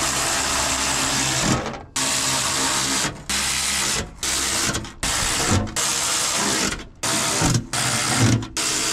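ACDelco 1/2-inch brushless cordless ratchet spinning bolts in, a steady motor whir in a string of short runs with brief stops between them.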